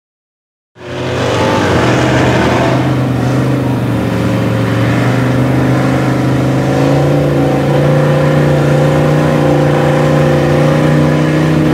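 Engine of a lifted mud truck on giant tires, starting about a second in, revving briefly and then running at a steady pitch as the truck drives through a mud pit.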